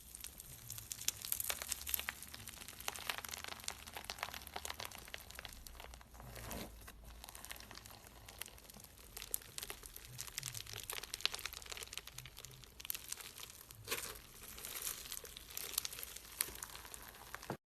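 Dense crackling and crinkling of a crunchy material squeezed and pressed by hand, full of small sharp clicks, as in slime and clay cracking ASMR. It cuts off abruptly near the end.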